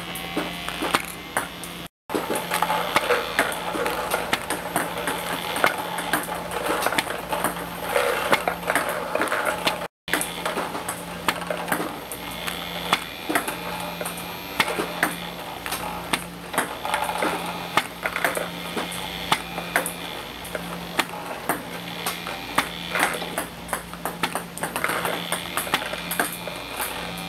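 Two-wheel table tennis ball robot running with a steady motor hum and wheel whir, shooting ping-pong balls that click and bounce on the table in a rapid string of clicks. The sound cuts out briefly twice.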